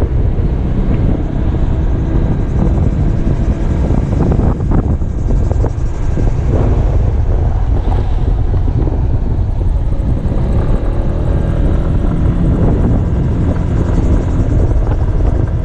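Kymco Xciting 250i maxi-scooter's single-cylinder four-stroke engine running steadily while riding along, mixed with heavy wind noise on the helmet-mounted microphone.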